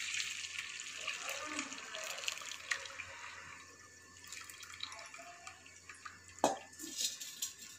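Whey from curdled milk pouring and splashing through a cotton straining cloth as the chhena curds are strained, tapering off to a trickle and drips after about three seconds. A single sharp knock comes near the end.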